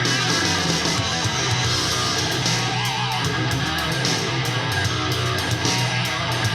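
Guitar-driven rock music played through a DIY retro Bluetooth boombox with two 3½-inch Dayton Audio ND90-4 aluminium-cone full-range drivers, at a steady level. The bass notes are strong.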